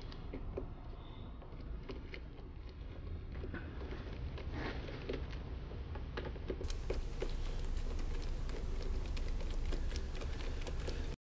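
Allen driver unscrewing the screws of a plastic diesel fuel filter housing: irregular small clicks and scrapes of the tool bit in the screw heads, over a steady low hum.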